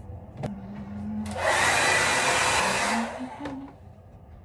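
Handheld hair dryer blowing, a loud even rush that starts a little over a second in and falls much quieter about three seconds in. A sharp click comes about half a second in.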